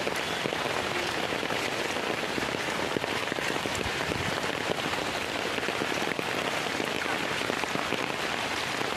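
Heavy rain falling steadily on standing floodwater and wet ground, a dense, even hiss of countless drops with no let-up.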